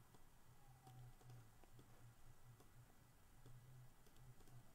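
Near silence with faint, scattered clicks from a computer mouse and keyboard, over a faint low hum.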